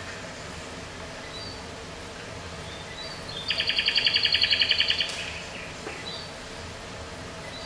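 Recorded birdsong played back over speakers: scattered short high chirps and, midway, one loud rapid trill of about ten notes a second lasting about a second and a half, over a steady hiss.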